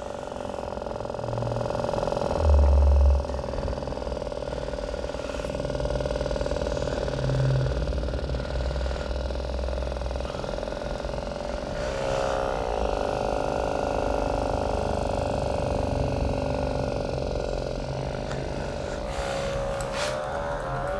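A motor hums steadily with an even pitch, which dips and recovers about twelve seconds in and again near the end. A louder low rumble comes briefly about three seconds in.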